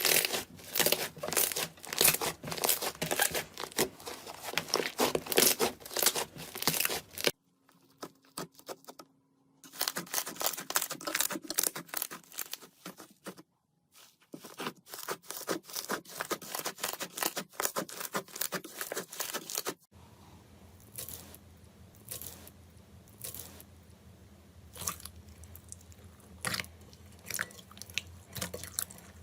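Slime being squished and stretched by hand: dense crackling and clicking pops, in several short clips with brief quiet gaps between them, sparser single pops near the end.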